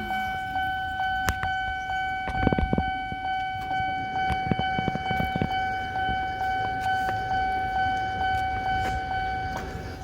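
Randen level-crossing warning bell ringing in a steady, evenly repeated clang, each stroke fading into the next, the old-fashioned crossing sound. Heavy low thumps a couple of seconds in and again about halfway through come from a Randen car's wheels rolling over the crossing.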